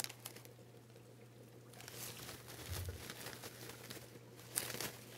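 Plastic artificial vine leaves faintly rustling and clicking as the string of vines is handled and untangled, in short spells, with a louder rustle near the end.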